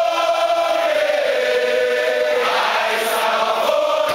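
A choir of several hundred firefighters singing a welcoming song together, holding one long note that sags a little in pitch before the singing moves on to new notes about two and a half seconds in.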